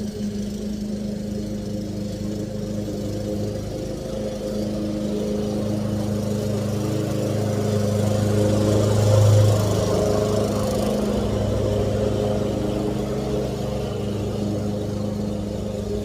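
Lawn mower engine running steadily, growing louder toward the middle and then easing off a little.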